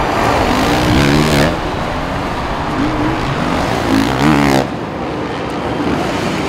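Four-stroke supercross motorcycle engines revving hard, with two loud surges of rising and falling revs, one about a second in and one about four seconds in, over steady stadium noise.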